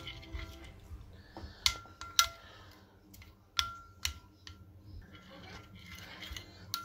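Metal teaspoon stirring melting chocolate into hot cream in a ceramic dish for ganache, scraping softly and clinking sharply against the dish several times in the middle.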